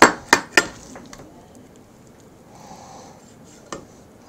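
Chef's knife striking a plastic cutting board three times in quick succession while trimming fat from raw chicken, then a single lighter knock near the end.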